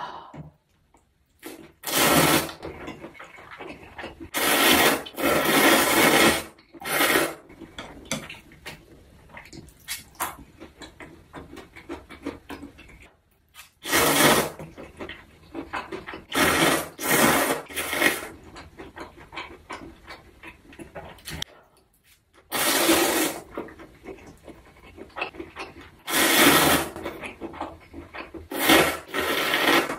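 Loud wet slurping of cold spicy bibim noodles sucked up in long mouthfuls, about ten slurps each lasting half a second to a second, in clusters. Quieter chewing between the slurps.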